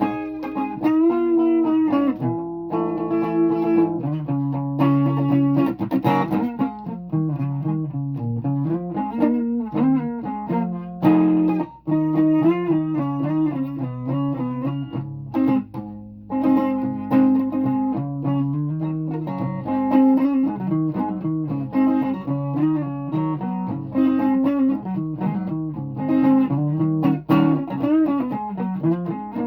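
Guitar playing a run of single notes and chords, breaking off briefly about twelve seconds in, with a steady low hum underneath.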